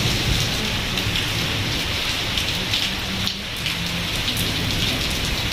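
Heavy rain pouring steadily onto a paved courtyard, puddles and potted plants, a dense, even hiss with sharp splashes of individual drops through it.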